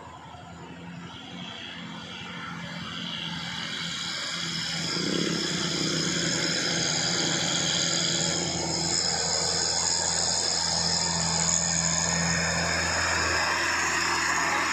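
Diesel engine of a loaded Nissan Condor truck working up a steep grade, getting louder over the first few seconds as it approaches, then holding steady close by.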